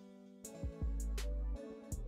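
Soft background music with held tones and a few separate note attacks, in a gap between narration.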